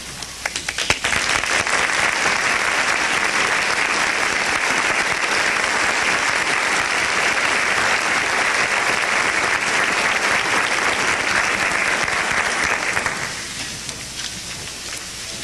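Audience applauding: a few scattered claps at first, then full steady applause that dies away about two seconds before the end.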